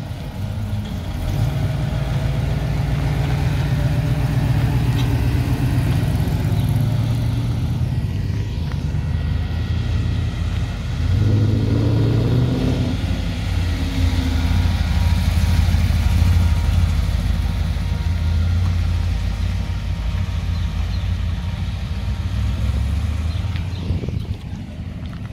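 Classic cars driving slowly past one after another, their engines running with a steady low note. A louder engine comes in about eleven seconds in.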